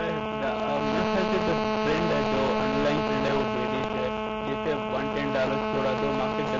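Loud steady electrical hum with a stack of overtones swamping a remote guest's audio line, a man's voice faintly audible underneath. It is a line fault: his voice is not coming through properly and his words are unintelligible.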